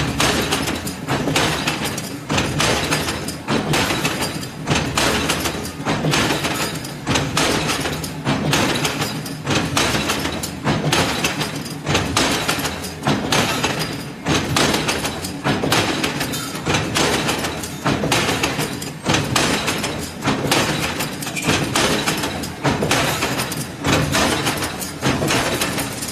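Gabion mesh (hexagonal wire netting) machine running, a steady metallic clatter and clinking that swells in a regular beat about once a second.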